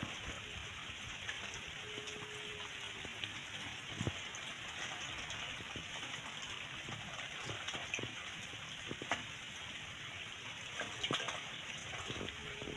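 Light rain falling on a pond's surface: a steady hiss with scattered drip ticks, and small splashes as a plastic bag of koi fry is moved about in the water.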